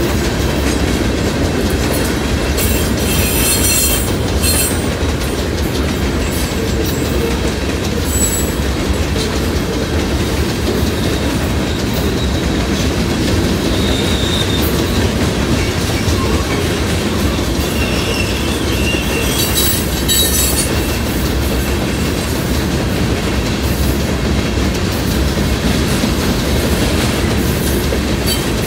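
Freight train's loaded hopper and gondola cars rolling past at a grade crossing: a steady rumble and clatter of wheels on the rails, with brief high-pitched wheel squeals about three seconds in and again near twenty seconds.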